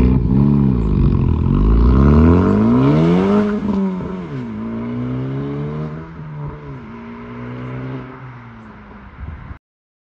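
Honda Civic Type R FL5's turbocharged 2.0-litre four-cylinder accelerating away through an exhaust with both resonators replaced by a straight pipe. The pitch climbs, drops at an upshift about four seconds in, then climbs again as the car fades into the distance, and the sound cuts off suddenly near the end.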